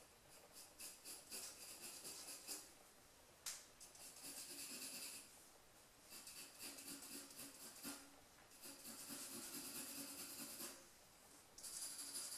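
Pencil scratching on drawing paper, faint, in five short bouts of strokes with brief pauses between them, and one sharp tick about three and a half seconds in.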